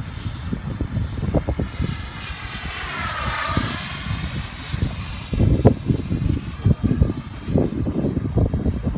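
F-15 fighter jet passing overhead, its engine whine dropping in pitch as it goes by about three and a half seconds in. Heavy wind buffeting on the microphone throughout.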